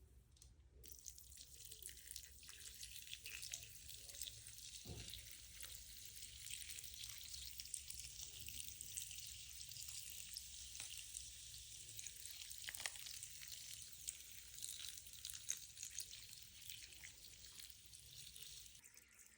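Dry clay scraps slaking in water for recycling: a faint, steady fizzing hiss full of tiny crackles and pops. It drops away abruptly near the end.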